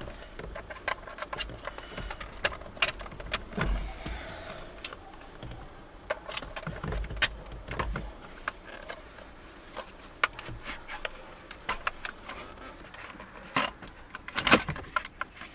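Hand work on car dashboard parts: scattered plastic clicks, knocks and scrapes as the glovebox housing is handled and a multimedia unit, freed with radio removal keys, is slid out of its holder, with a cluster of louder clicks near the end.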